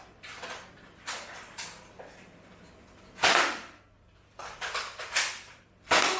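Zuru X-Shot Vigilante toy dart blaster being cocked and fired: a series of short clacks and whooshes, the two loudest about three seconds in and just before the end.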